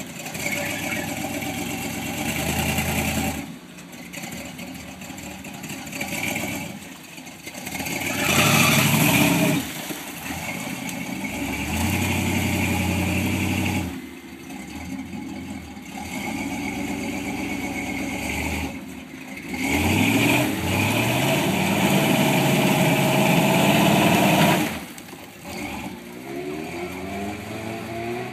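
Engine of a tube-caged off-road truck revving hard in several bursts of a few seconds each, pitch climbing and falling between quieter lulls, as it crawls over roots through a muddy creek bed.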